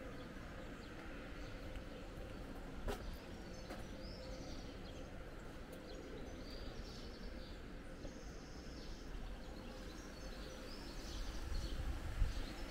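Outdoor ambience of small birds chirping in short scattered calls over a steady background hum. A single sharp click comes about 3 s in, and a low rumble swells near the end.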